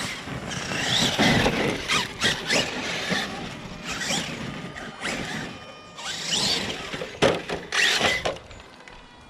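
Losi LST 3XL-E RC monster truck running on its Dynamite 2200 kV four-pole brushless motor, the motor and drivetrain whining up and down in pitch with repeated bursts of throttle, over a noisy rush of tyres.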